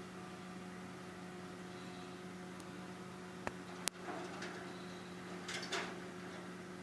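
Steady electrical hum, with two sharp clicks about three and a half seconds in and a few brief rustling or scraping noises just after.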